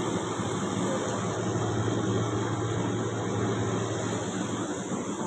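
A steady low mechanical hum, like a motor or engine running, over continuous outdoor background noise; the hum fades out near the end.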